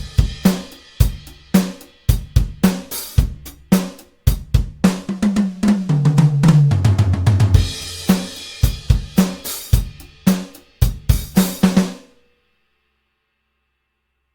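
Sampled drum kit from the Toontrack EZdrummer 3 plugin playing a groove of kick, snare, hi-hat and cymbals. Midway through, a fill steps down in pitch over about two seconds. The groove then resumes and stops about twelve seconds in.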